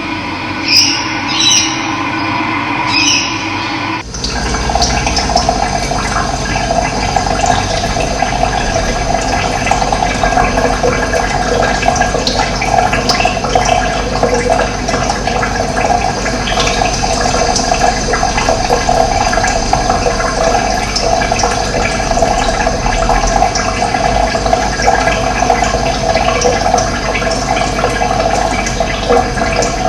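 Running water rushing steadily, cutting in abruptly about four seconds in. Before that there is a different sound with several steady tones.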